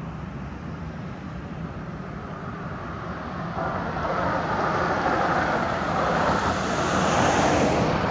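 A motor vehicle passing: a steady low rumble that swells from about halfway through, peaks near the end and then begins to fade.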